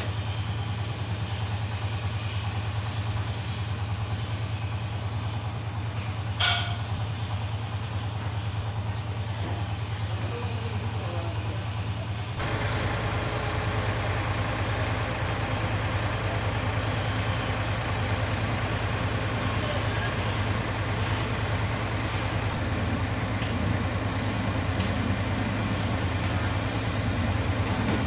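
Heavy-equipment diesel engine idling steadily, with a brief rising squeal about six seconds in. About halfway through the sound grows louder and deeper and stays that way.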